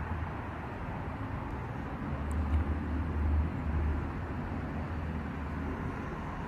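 Steady distant traffic hum, with low rumbling on the microphone between about two and four seconds in.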